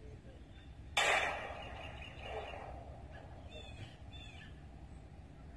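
A single 9mm pistol shot from an SCCY CPX2 about a second in, with a sharp crack that dies away over about half a second. Faint chirping calls follow a couple of seconds later.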